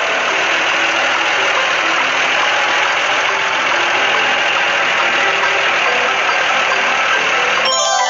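Steady engine and machinery noise of a construction vehicle at work, with faint short tones repeating underneath. About a second before the end the machine noise stops and a chiming mallet-percussion jingle begins.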